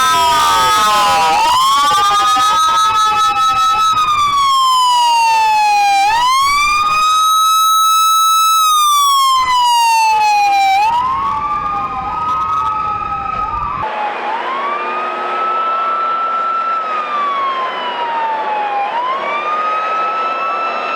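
Several police car sirens wailing at once, their slow rising and falling tones overlapping, each cycle taking about four to five seconds. About eleven seconds in, the sound turns duller and a little quieter.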